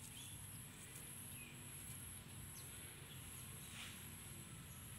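Faint, steady high-pitched chirring of insects, with a brief soft rustle of dry straw being handled about four seconds in and a few faint bird chirps.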